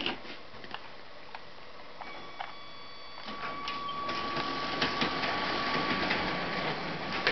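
LEGO toy train's electric motor running as the train moves along the plastic track: a steady mechanical whirr with scattered light clicks, getting louder about halfway through.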